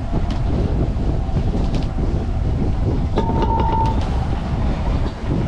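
Wind buffeting the microphone and water rushing along the hull of a sailboat under sail. A little after three seconds in, a short steady electronic beep from the misbehaving autopilot sounds once.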